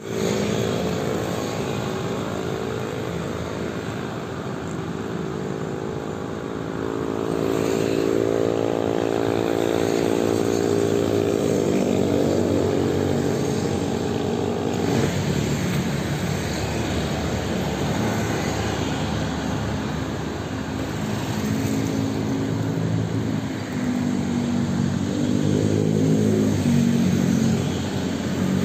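Motorcycle engine running at a steady cruising pace, a droning hum under wind and road noise. The engine drone is strongest for the first half, drops back for a while, then comes up again near the end.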